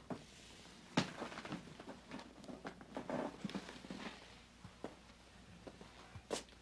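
Clothing rustling and small creaks as a man rises from a chair, followed by a few soft footsteps, with a sharp knock about a second in and another near the end.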